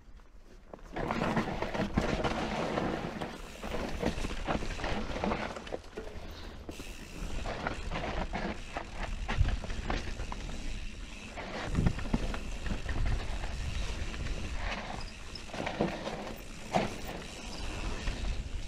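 Propain Spindrift enduro mountain bike riding down a rough forest trail: tyres on dirt, leaves and roots, with irregular knocks and rattles from the bike as it hits rocks and roots. It starts about a second in.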